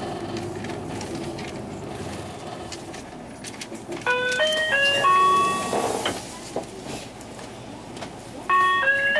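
Running noise of a Hino Blue Ribbon II diesel city bus heard from inside the cabin. About four seconds in, a four-note electronic chime plays, and another chime begins near the end.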